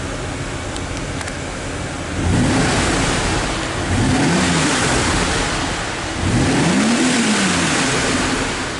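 1983 Mercedes-Benz 380SL's 3.8-litre fuel-injected V8 idling, then revved three times, each rev climbing in pitch and falling back to idle.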